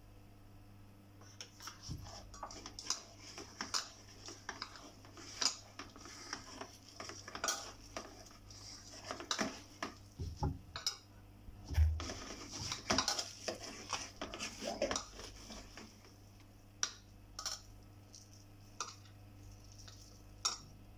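Hands mixing sliced onions and gram flour into bhaji batter in a stainless steel bowl: irregular clinks and taps against the steel with a moist rustling of the onions. The mixing is busiest for about the first fifteen seconds, then thins to a few scattered taps.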